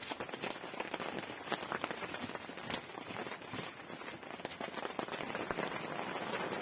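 Rain falling, with many quick drops striking a surface in a dense, steady spread.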